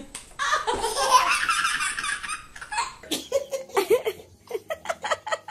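Laughter: a long, shrill burst of a baby's laughter, then a quick run of short rhythmic laughs, about four a second, through the rest.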